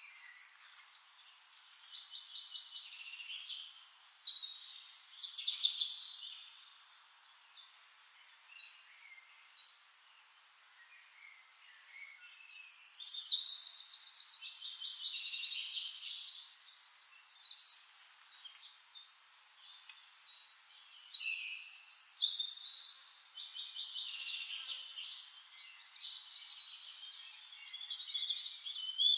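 Songbirds singing in bursts of rapid trills and warbling phrases. The song falls to a quiet lull about a third of the way through, then returns at its fullest.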